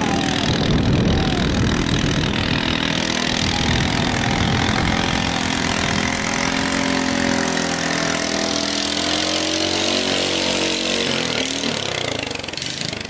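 Longtail racing boat's single-cylinder 405cc (13.5 HP) engine, running on LPG through a converter kit, running steadily at speed as the boat goes by. The sound fades away near the end.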